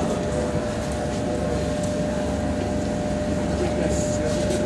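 MBTA Red Line subway train in the station: a steady rumble with a constant hum held on one pitch.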